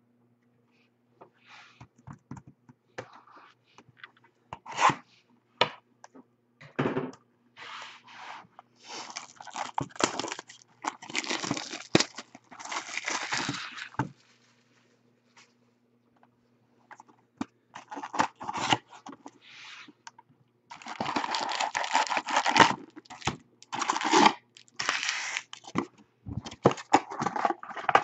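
Tearing and crinkling of the shrink wrap and cardboard on a sealed Bowman Chrome Jumbo hobby box being opened, then foil card packs scraping and rustling as they are pulled out and stacked. The noise comes in irregular rasps, with a pause of a few seconds halfway through.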